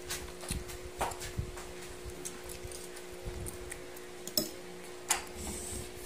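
Metal fork and spoon clinking against a dish while eating, a few scattered sharp clicks over a steady low hum.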